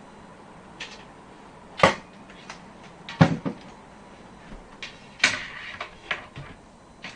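A PC case's rear side panel being handled and pressed against the chassis: a series of sharp knocks and clicks, the three loudest about two, three and five seconds in, with smaller clicks between.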